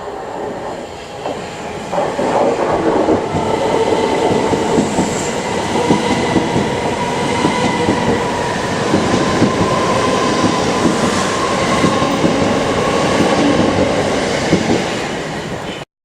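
A train passing, its wheels clattering over the rail joints under a faint steady whine. It grows louder about two seconds in and cuts off suddenly near the end.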